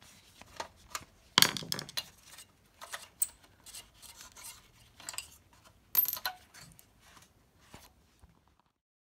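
Screwdriver and loose screws clicking and clattering as the picture tube's mounting screws are taken out of a CRT television's plastic case, with two louder metallic clatters about 1.5 s and 6 s in. The sound cuts off shortly before the end.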